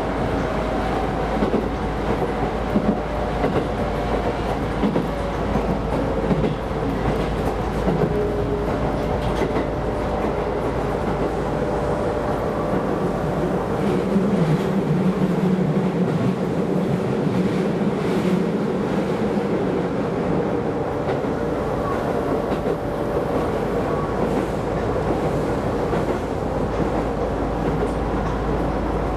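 Keisei Line electric rapid train running along the track, with steady running noise, a faint hum, and wheels clicking over rail joints; the low rumble swells for a few seconds around the middle.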